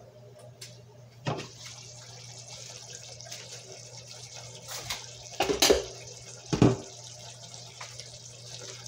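Glass pot lid lifted off with a clink about a second in, then the uncovered chicken drumstick stew sizzling and simmering steadily in the pot. There are a few louder knocks around five and a half and six and a half seconds.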